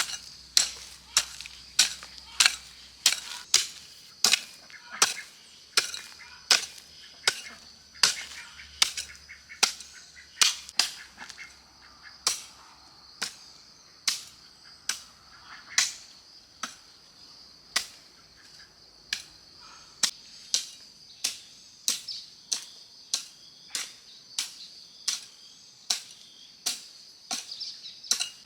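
Repeated sharp chops of a blade striking a wooden chopping board, steady at one to two strikes a second, over a constant high-pitched drone.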